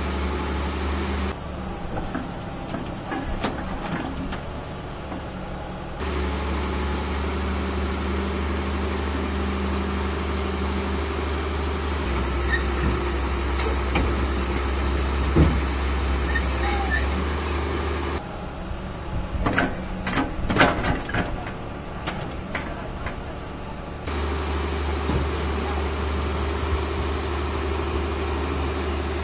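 Hitachi EX200LC crawler excavator's diesel engine running steadily under load as it climbs onto a truck's flat bed, with a run of sharp metallic clanks about two-thirds of the way through.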